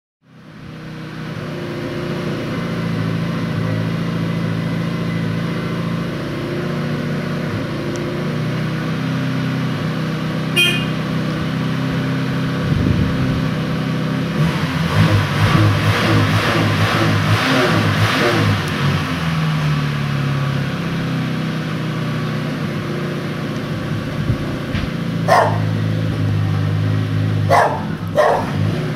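ZAZ Tavria Lux's 1091 cc engine running, revved for a few seconds about midway, with its exhaust blowing through a hole at the base of the muffler's outlet pipe. A dog barks several times near the end.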